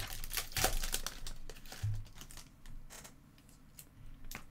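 Foil trading-card pack wrapper crinkling and tearing as it is opened by hand, a dense crackle for about the first two seconds that thins to fainter scattered crackles.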